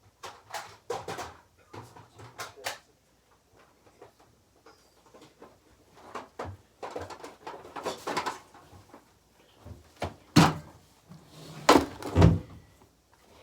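Irregular knocks, bumps and clatter of things being moved and handled, loudest in a few heavy thuds about ten and twelve seconds in.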